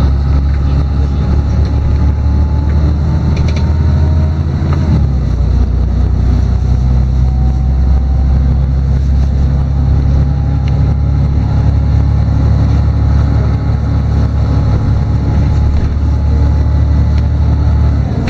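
LiAZ-6213.22 articulated city bus on the move, heard from inside the cabin: the diesel engine drones steadily with a faint rising whine from the drivetrain. The engine note shifts about five seconds in, as with a gear change.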